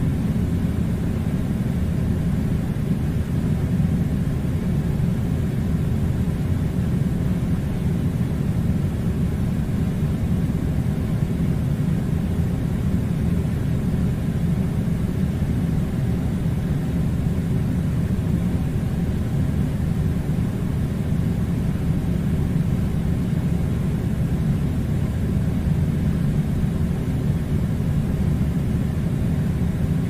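Air conditioner running with a steady low rumble that does not change.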